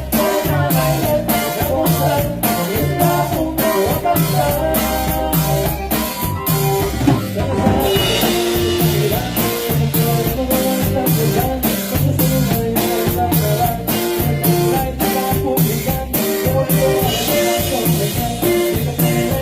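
A live band playing an upbeat Latin dance tune: a drum kit keeps a steady beat under guitar and other instruments, with cymbal crashes about seven seconds in and again near the end.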